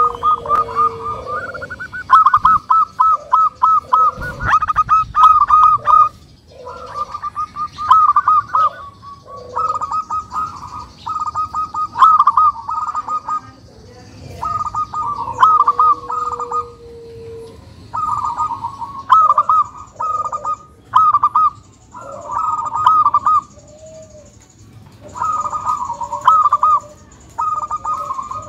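Zebra dove (perkutut) cooing: repeated phrases of quick, rattling notes, a new phrase every second or two.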